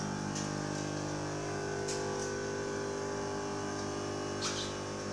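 Power transformer humming steadily inside its ventilated enclosure, a dense buzz of several fixed pitches, with a few faint ticks over it.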